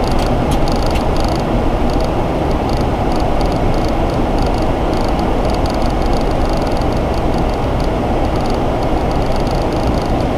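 Steady flight-deck noise of a Boeing 737 in flight on approach: an even, low rushing of air with the engines' hum beneath it.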